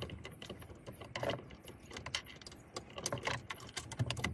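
Irregular metallic clicks and rattles of hand tools and bolts as the rear grab handle's 10mm bolts are threaded in and tightened.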